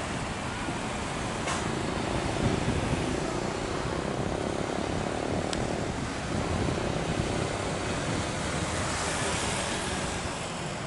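Jet engines of an Airbus A320-family airliner running steadily as it rolls slowly along the runway, heard as an even rushing noise.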